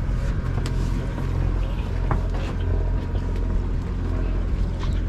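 The party boat's engine running with a steady low drone, with a few light clicks over it.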